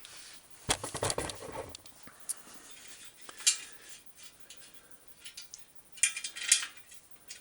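Bicycle fender stays and their metal hardware clinking and rattling against each other and the frame as they are fitted onto the bike: a cluster of knocks about a second in, a single sharp clink midway, and another burst of clinks near the end.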